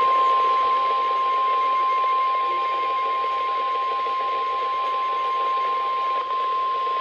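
NOAA Weather Radio 1050 Hz warning alarm tone: one steady, unbroken tone held over radio static, the attention signal that an emergency warning broadcast is about to follow.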